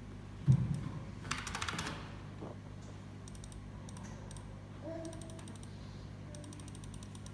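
A low steady hum from the powered-up karaoke sound system, with a soft thump about half a second in and scattered light clicks, a cluster of them just after a second in.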